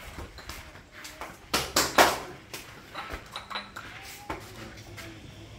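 Three sharp knocks in quick succession about a second and a half to two seconds in, then a few lighter clicks, over quiet room tone.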